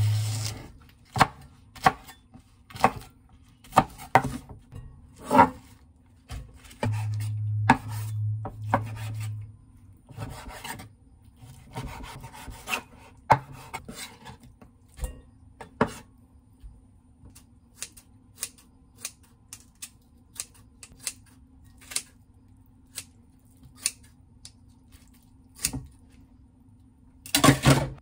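Cleaver chopping green onions and pork on a wooden cutting board: single knocks, roughly one a second. A low hum sounds for a couple of seconds about seven seconds in, and a louder clatter comes near the end.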